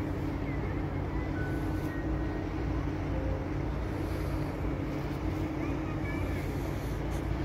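Boat engine running with a steady low drone, with a few faint high chirps over it.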